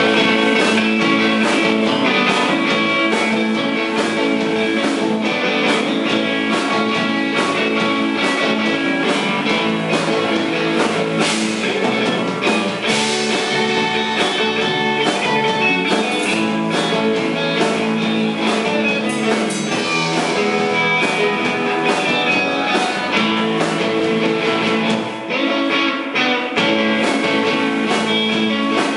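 Instrumental surf rock played live by a band: electric guitars over a drum kit.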